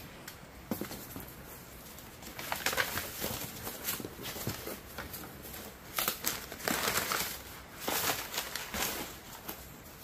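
Crumpled brown kraft packing paper rustling and crinkling as it is handled and pulled out of a cardboard shipping box, in irregular bursts that start a couple of seconds in.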